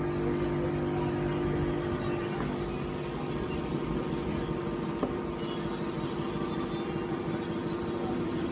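A small electric motor or blower whirring steadily with a low hum; the hum's steady tones fade about two and a half seconds in, leaving a rougher whir, and a single click sounds about five seconds in.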